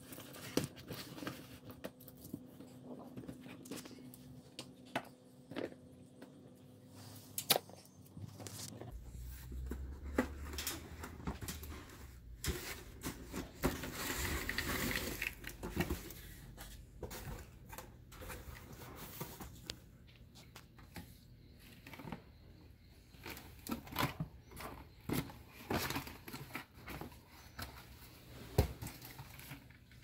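Cardboard packaging being handled and opened: scattered knocks and taps of box flaps and lids, with a longer rustling, scraping stretch about halfway through as the printed sleeve slides off the inner box.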